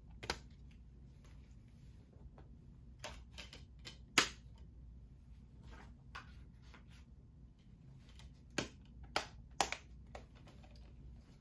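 Scattered clicks and taps of a SteelBook disc case being handled, shut and put back together, the sharpest click about four seconds in and a few more close together near the end.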